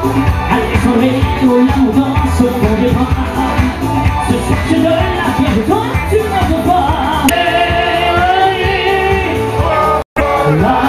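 Loud live pop music played over a stage PA, with a singer's voice carrying the melody from about seven seconds in. The sound cuts out for an instant near the end.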